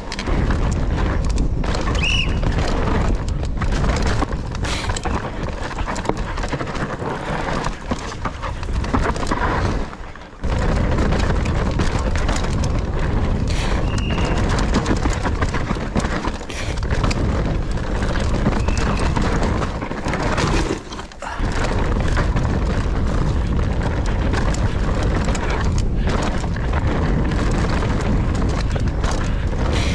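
Nukeproof Mega 290 mountain bike descending a loose, rooty dirt trail at speed: tyres rumbling and crunching over dirt and roots, bike rattling with many sharp knocks, and wind buffeting the microphone. The noise drops out briefly twice, about ten and twenty-one seconds in.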